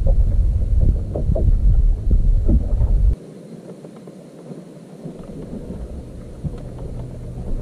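Wind buffeting a camera microphone on an open boat deck: a loud low rumble that cuts off suddenly about three seconds in, leaving a much quieter wind hiss with a few faint knocks.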